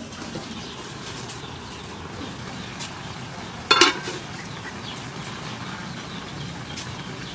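Food cooking in a covered wok, a steady sizzling hiss. A little under four seconds in, the aluminium lid is lifted off with a short, loud metallic clatter, and steam rises from the pan.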